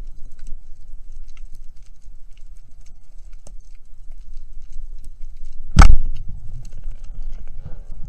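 Underwater ambience of low rumble and faint scattered clicks, broken a little past halfway by one loud, sharp clack of a speargun firing.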